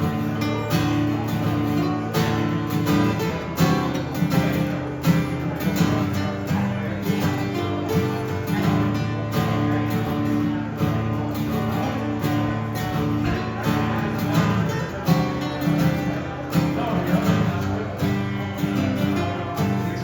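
Live acoustic guitar strumming a steady rhythm in an instrumental passage of a country-rock song, without singing.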